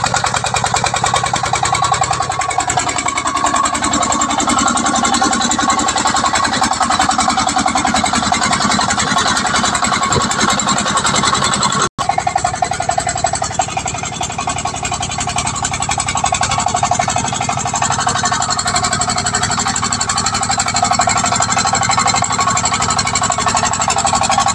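Single-cylinder diesel engine of a homemade two-axle-drive công nông farm truck chugging fast and steadily under load as the truck crawls over a rocky, muddy track. The sound drops out for a moment near the middle.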